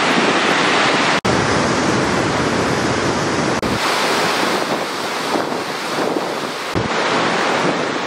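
Rushing floodwater: a stream swollen by storm flooding, running high under a bridge, with wind buffeting the microphone. The steady rush breaks off abruptly twice for an instant.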